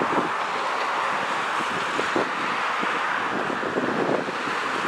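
Wind buffeting the microphone in short gusts over a steady rushing noise.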